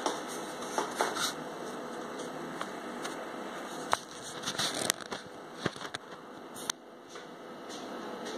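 Steady background hiss of room noise with a few scattered sharp clicks and crackles.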